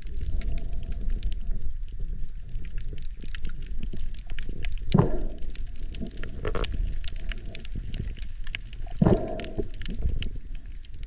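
Water heard underwater: a steady low rumble with a few louder bubbling gurgles, about five and nine seconds in.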